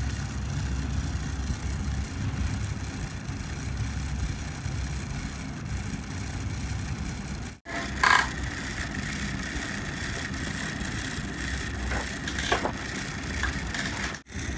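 Homemade mini wet grinder running: a small electric motor turning the grinding stone in its steel drum with a steady, rattling hum. The sound cuts out abruptly about halfway and again near the end; after the first break a faint steady whine sits above the hum, with a few clicks.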